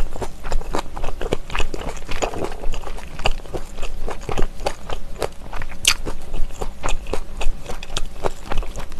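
Close-miked chewing of a mouthful of smoked pork belly: an irregular run of wet mouth clicks and smacks, several a second.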